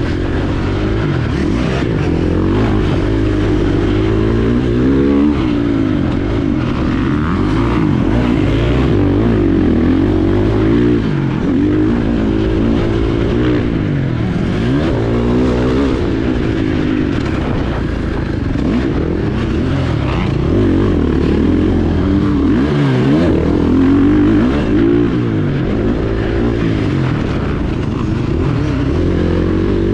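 KTM 450 SX-F's single-cylinder four-stroke engine under race load, revving up and dropping back over and over, its pitch sweeping up and down as it is ridden on and off the throttle through the gears.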